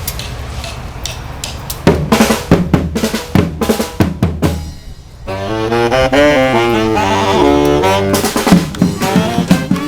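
Street brass band playing: the snare and bass drums beat out a fill for about three seconds, then after a brief break the horns (saxophones and brass) come in together with a melody over the drums.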